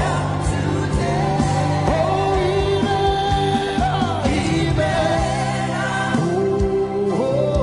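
Live gospel worship music: a singing voice holding long, gliding notes over a band with steady bass and drums.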